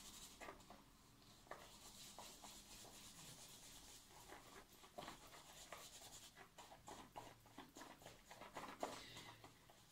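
Faint, soft swishing and scratching of a wet shaving brush being whipped round a faux-wood bowl, with many small irregular ticks as the bristles churn shaving soap; the lather is just beginning to form.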